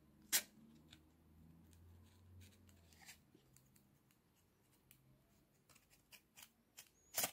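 A stiff business card scraped in and out between the blade teeth of a Powertec TR-658 hair trimmer to clear out trapped hair: faint scraping with scattered sharp clicks, a sharp click about a third of a second in and a quick run of clicks near the end.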